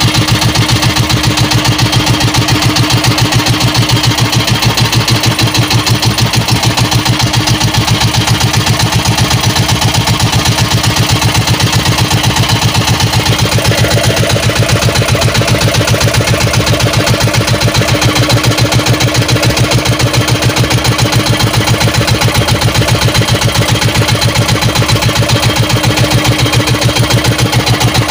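Small fishing boat's inboard engine running steadily at a constant speed, loud and close, with a rapid, even chugging pulse.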